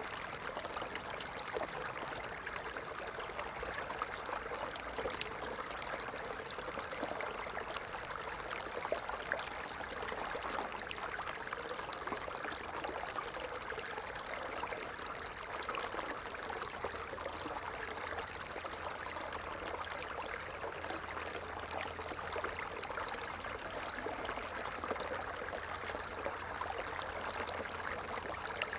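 Steady babbling and trickling of a flowing stream.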